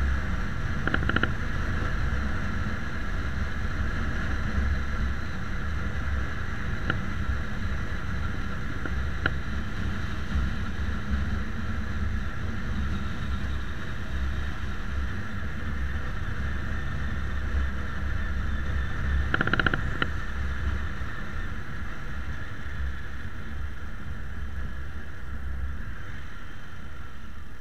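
Motorcycle under way: engine running with a steady low rumble, mixed with wind and road noise on the camera's microphone. Two brief louder bumps stand out, one about a second in and one near twenty seconds in, and the sound eases off a little near the end.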